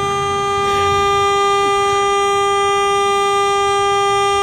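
Car horn held down in one long, steady, unbroken blare, set off by a dog leaning on the steering wheel.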